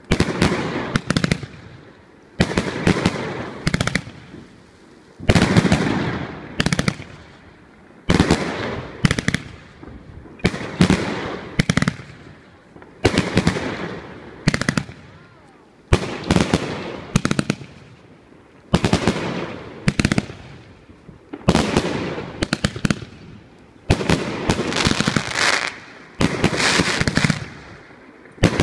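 A 724-shot mixed-calibre (30, 38 and 50 mm) consumer fireworks cake firing in repeated volleys: each volley is a quick cluster of launch thumps and bursts, coming about every two and a half seconds.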